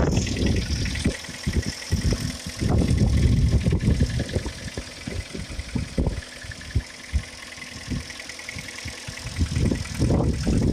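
Hyundai ix35 petrol engine running just after a cold start, with a fast, even knocking. The owner calls it a loud, strange knock that comes at cold start after standing overnight, dies down quickly and goes away when the engine is hot, and does not know its cause. Wind buffets the microphone in gusts.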